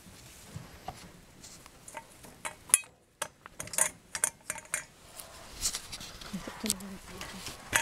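Rabbits scuffling in a straw-floored wire hutch: an irregular run of sharp knocks and metallic clinks as they jostle against the stainless steel bowls and wooden frame, with one loud knock a few seconds in.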